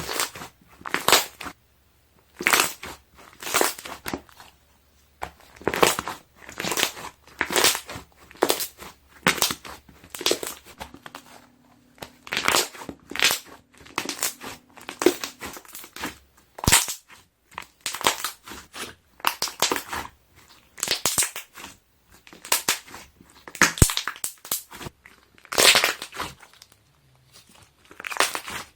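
Slime being pressed and squeezed by hand, its trapped air bubbles popping and crackling in short bursts, one or two a second, with brief pauses between presses.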